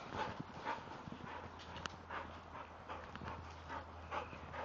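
Footsteps on grass and fallen leaves, soft and uneven at about two a second, with a steady low hum starting about a second in.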